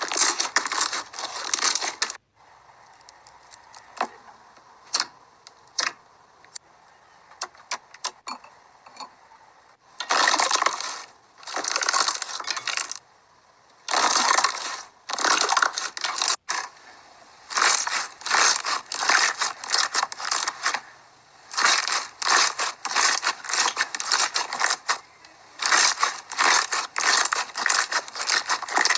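Slime being squeezed and worked by hand, giving dense crackling and clicking in bursts of a second or two. Between the bursts are quieter stretches with scattered clicks.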